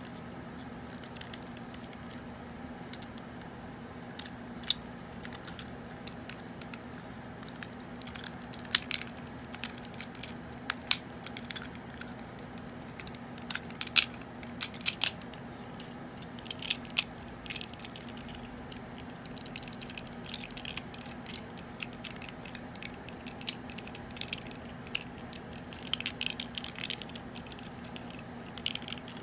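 Vintage G1 Hot Rod Transformers figure being handled and transformed: irregular sharp clicks and snaps of its hinged parts and joints, busiest in the middle and again near the end, over a steady low hum.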